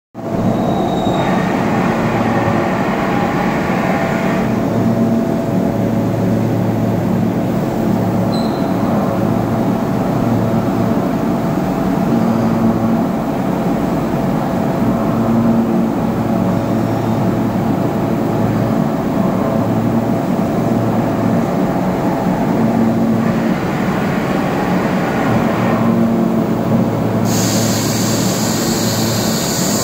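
Doosan Puma MX2500 CNC turn-mill centre running with a steady machine hum. Stretches of hiss come and go: one shortly after the start, another about 23 seconds in, and a brighter, higher one near the end.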